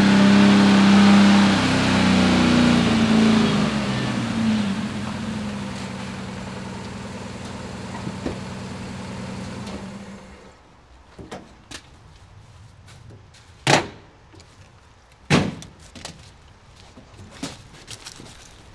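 An old fire truck's engine running as the truck slows and pulls up. It shuts off about ten seconds in, and then come clicks of the cab door latch and two sharp thunks as the cab door is worked and someone climbs down.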